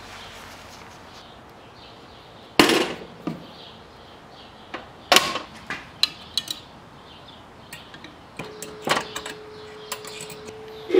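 Metal handling sounds from a small steel camp oven: a sharp clunk a few seconds in and another about five seconds in, then lighter clicks and taps as a metal poker is worked in its side port. A steady low hum starts about eight seconds in.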